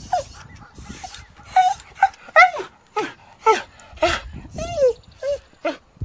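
Pomeranian puppy giving a quick run of high, short yips and whimpers, about two a second, each call dropping in pitch.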